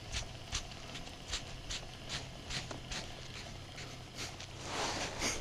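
Baitcasting reel being cranked to reel in a spinnerbait, giving a steady run of light clicks, about two or three a second. A short rushing noise near the end.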